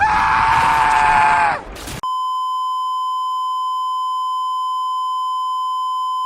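A loud cry lasting about a second and a half, falling slightly at the end. Then, after a sudden cut, a steady test tone: the broadcast feed has dropped out.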